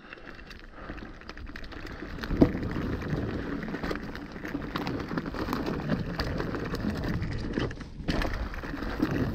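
Mountain bike descending a rocky, loose trail: tyres crunching and crackling over stones, with the bike's chain and components rattling. It builds up over the first few seconds, with one harder knock about two and a half seconds in.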